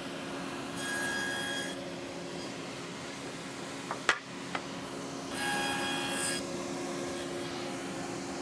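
A wooden board rasping as it is slid along a table saw's cast-iron top and fence, twice for about a second each, with a few sharp knocks between the two. A steady machine hum runs underneath.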